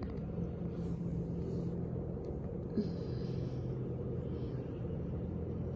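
Two-week-old puppies squirming and being handled on a fleecy blanket: soft rustles over a steady low room hum, with one short faint squeak about three seconds in.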